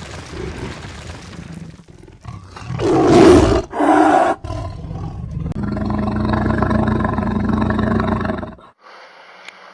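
A big-cat roar, loud about three to four seconds in, then a long steady sound that cuts off suddenly near the end.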